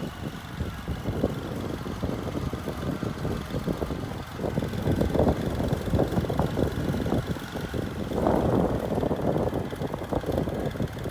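Komatsu D53E bulldozer's diesel engine running under work, with constant clatter and crunching over it; louder about eight seconds in.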